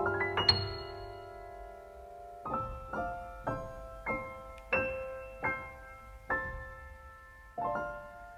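Background piano music: a quick rising run of notes, then slow single notes struck about every half second or so, each ringing and fading away.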